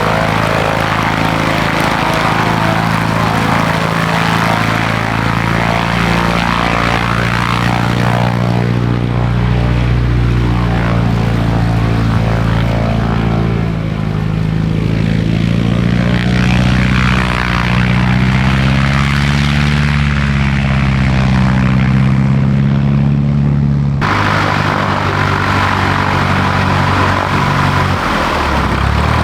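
Cessna 140's four-cylinder engine and propeller running steadily, the engine speed shifting up and down; the sound changes abruptly about three quarters of the way through, and the speed drops sharply near the end.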